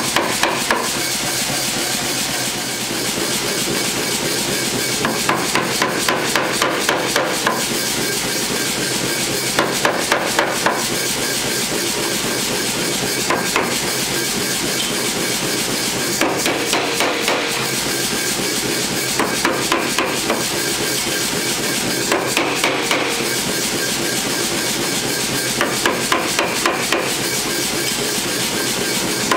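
Power hammer striking a red-hot 3/4-inch square steel bar in short runs of quick blows, about eight runs a few seconds apart, over a steady mechanical running noise.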